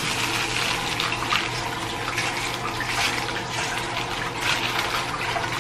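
Water running steadily from a tap, with paper wrapping crinkling as it is peeled off a bath bomb.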